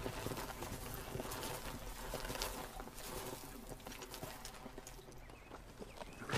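Faint outdoor background ambience with scattered soft clicks and rustles, growing quieter toward the end.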